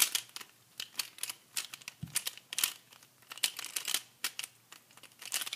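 Pyraminx puzzle being turned fast by hand: uneven plastic clicking of its layers and tips twisting, several clicks a second, with one dull thump about two seconds in.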